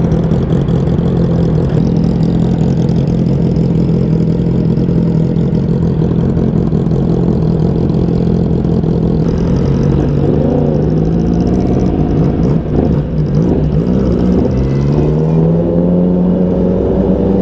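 Yamaha R1's inline-four engine idling steadily, with a short rev about ten seconds in. Near the end it rises in pitch as the bike pulls away at low speed.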